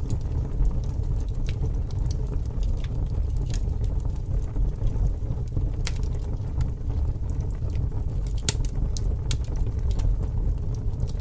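Large bonfire burning: a steady low rumble of flames with scattered sharp crackles and pops.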